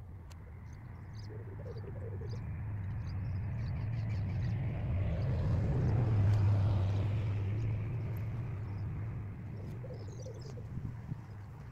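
A narrowboat's engine passing on the river: a low, steady hum that builds to its loudest about halfway through and then fades away. Faint bird chirps sound over it.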